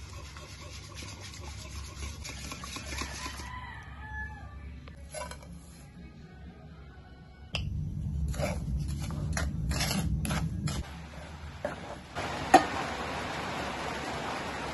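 A wire whisk beating eggs into milk in a stainless-steel bowl, making fast scraping clicks against the metal. About halfway through the sound changes to a low hum with scattered clicks for a few seconds, then a single sharp click and a steady hiss.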